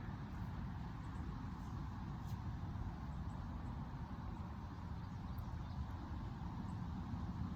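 Wind rumbling on the microphone: a low, uneven noise, with a couple of faint ticks.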